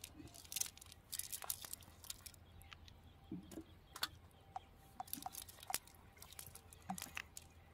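Irregular wet clicks and crackles as a nylon fishing net is handled and small fish are picked out of it over wet mud. Near the middle there are a few short, faint peeps.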